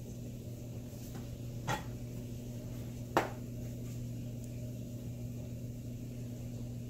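Two sharp clicks about a second and a half apart as plastic seasoning containers are handled over a frying pan, over a steady low hum.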